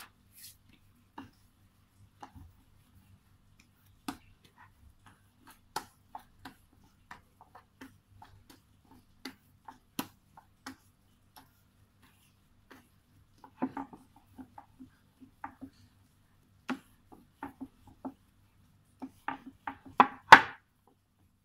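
Yeast dough for steamed buns being kneaded by hand on a wooden board: irregular soft thumps and knocks as the dough and hands press on the wood, in small clusters, with the loudest knocks near the end.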